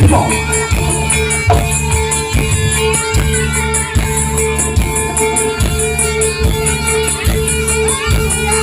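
Traditional Javanese barongan accompaniment music playing loudly, with a regular drum beat about every 0.8 seconds under a held tone.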